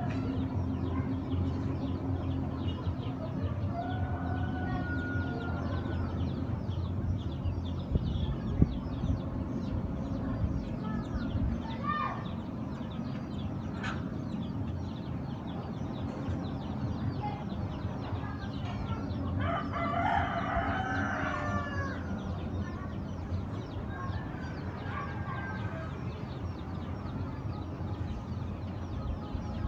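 A rooster crowing several times, with some clucking, the longest and loudest crow about two-thirds of the way in, over a steady low engine drone.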